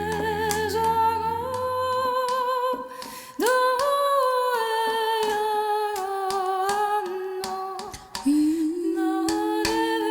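Wordless improvised vocal music: held, hummed and sung notes with vibrato, over a low drone that stops about two seconds in. New sustained notes come in about three seconds in and again near eight seconds.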